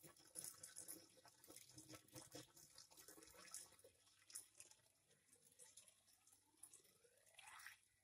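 Faint splashing and trickling of water poured from a metal can into a water pump to prime it, with a faint tone rising in pitch near the end as the pump fills.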